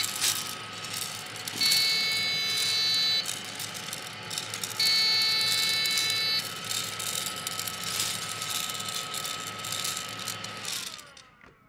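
Gene Cafe coffee roaster running its cooling cycle: the drum motor and fan hum steadily while the beans tumble. A high electronic beep sounds three times, each about a second and a half long and about three seconds apart. Near the end the motor winds down, falling in pitch, and stops as the cooling finishes.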